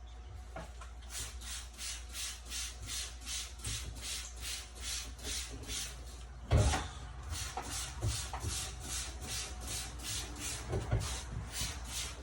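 Rhythmic scrubbing strokes, about three a second, on a dehumidifier part during cleaning. A louder knock comes about six and a half seconds in, with a few lighter knocks later, as the part is handled.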